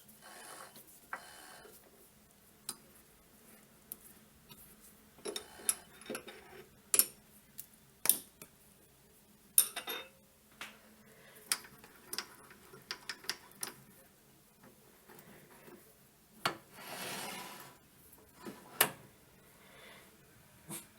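Small metal tools and parts clinking and knocking against each other and a metal work surface as they are handled, at uneven intervals, with some rubbing and a scrape lasting about a second near the end.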